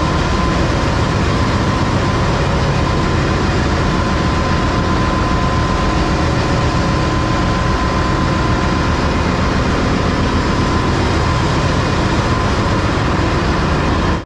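Ship's engine-room machinery running: a loud, steady mechanical din with a constant whine.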